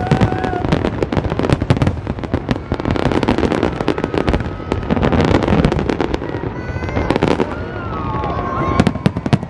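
Fireworks display going off: many sharp bangs in quick succession over continuous crackling from shells bursting overhead.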